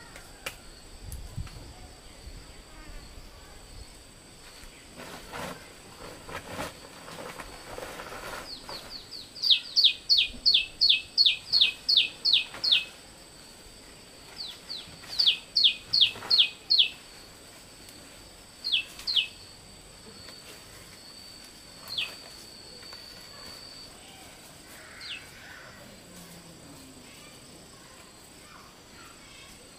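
A bird calling in quick runs of short, downward-sweeping chirps, about three a second: a run of about ten, then one of about seven, then a few single notes further apart. Under it runs a steady high insect hum.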